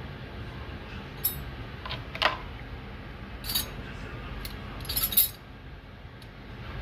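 Metal parts and tools clinking and rattling during work on a washing machine gearbox and pulley: a handful of short, sharp clinks, the loudest a cluster about five seconds in, over a steady low hum.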